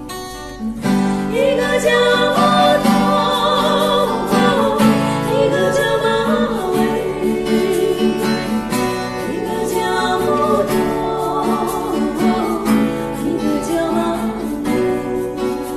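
Two women singing together to a strummed acoustic guitar, with a hand shaker keeping time. The singing starts about a second in and eases off near the end while the guitar carries on.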